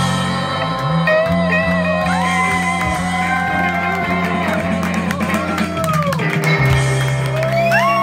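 Live band music: a semi-hollow electric guitar plays held lead notes that bend and slide over a strummed acoustic guitar and steady low notes.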